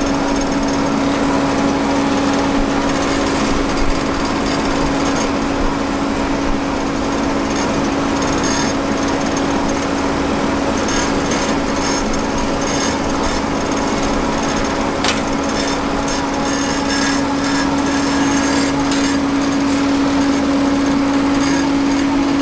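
Asphalt paver (finisher) working: a continuous machine drone with a steady hum and a fast mechanical rattle, the clatter thickening about halfway through.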